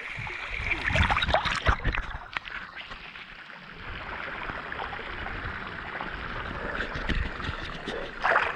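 Water splashing and sloshing close by as someone moves through a shallow waterfall pool, over the steady rush of running water. The splashes are loudest and sharpest about a second in and again near the end.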